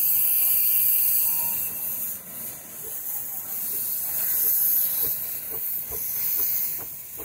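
Miniature 2-6-2 steam locomotive hissing steam from its open cylinder drain cocks as it pulls away. From about five seconds in, a regular beat of about two to three a second comes through as it moves off.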